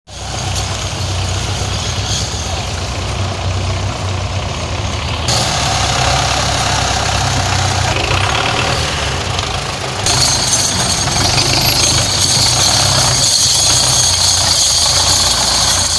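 Several farm tractors' diesel engines running together under load, pulling one heavily loaded trolley. The sound changes abruptly about five and again about ten seconds in.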